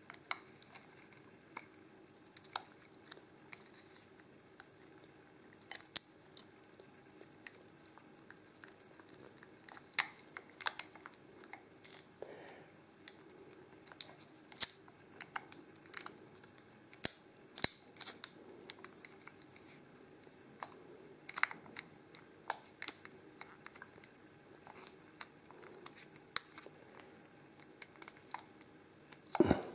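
A thin shim cut from an aluminium drink can being worked into the gap between a padlock's shackle and body. It makes irregular small metallic clicks and scrapes, with a few sharper clicks.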